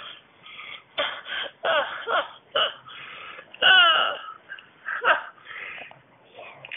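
A man crying with tears of joy: short, catching sobs and wavering whimpering cries, loudest about four seconds in.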